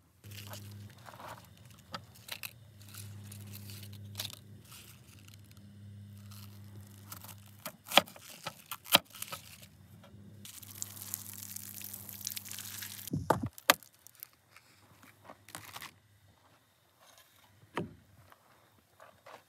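Food preparation on a wooden picnic table: a few sharp knocks of a knife and utensils on a wooden cutting board, handling and scraping sounds, and a couple of seconds of hiss in the middle, over a low steady hum that stops about two-thirds of the way through.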